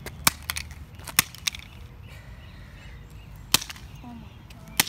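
Sharp cracking impacts as an already-shattered iPod touch (4th generation) is smashed against asphalt, about six hits at irregular intervals.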